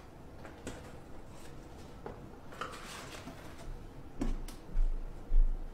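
Someone moving about a room: scattered faint clicks and light knocks, then several dull thumps in the last second and a half.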